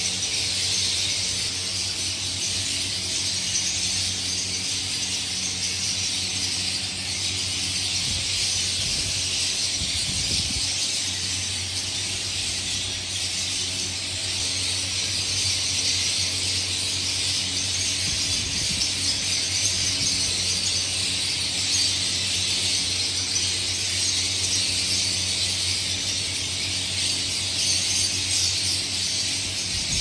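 Dense, continuous high-pitched chatter of a large flock of lovebirds, over a faint steady low hum.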